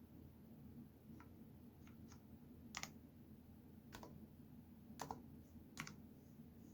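Keys on a Cherry MX Board 10.0 Low Profile mechanical keyboard pressed one at a time: about seven faint, separate clicks spaced roughly a second apart or less, with the sharpest ones near the middle and about five seconds in.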